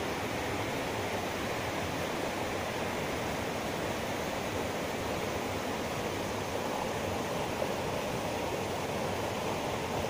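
Steady rush of a rocky rainforest river in spate, its rain-swollen water surging down from the mountains and churning over boulders.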